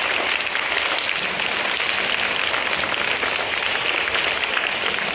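A crowd applauding with steady, continuous clapping.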